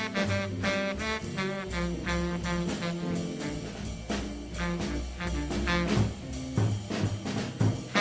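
Recorded small jazz group playing fast bebop: a horn plays quick runs of notes over a walking double bass and drums with cymbals.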